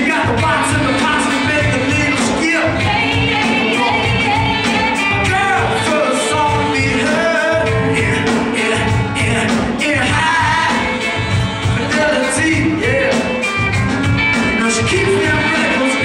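Live band playing loudly, with a lead singer over drums, electric guitar and a saxophone section.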